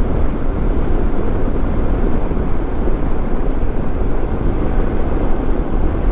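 KTM 390 Adventure motorcycle riding at highway speed: a steady rush of wind over the rider's microphone with road and engine noise underneath.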